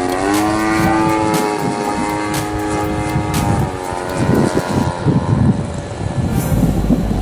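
Radio-controlled Hyperion Yak 54 aerobatic model plane's motor and propeller in flight, a steady drone whose pitch rises about half a second in and holds. About three and a half seconds in the drone fades, leaving an uneven low rumble.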